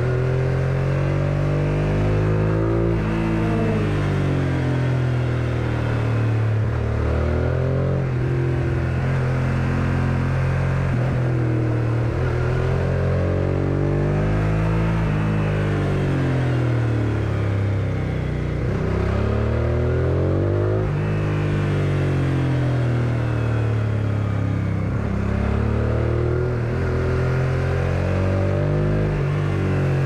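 1999 Suzuki SV650S's 645 cc V-twin engine, heard from on the bike. The revs climb and drop again and again as the throttle is opened and closed.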